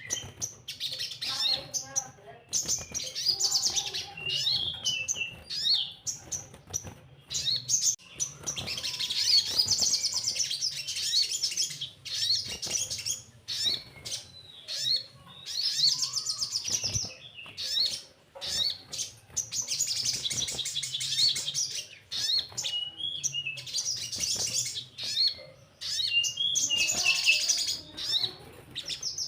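Sogon songbird twittering: rapid, high-pitched chattering trills and chirps in repeated bursts of a second or two with short pauses between.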